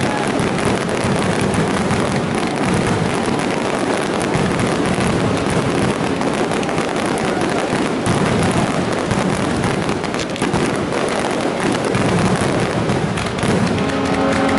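Fireworks display: a dense, continuous run of crackles and bangs. Near the end a steady horn blast starts over them.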